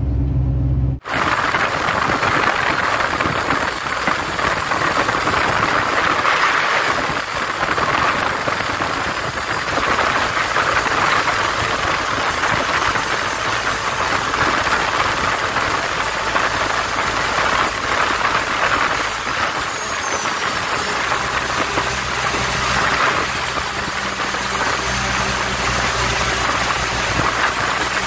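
Wind and road noise rushing past a camera held at the open side window of a moving semi-truck, with the truck's engine drone coming up in the last several seconds. The first second is a steady low engine hum, then cuts abruptly to the wind.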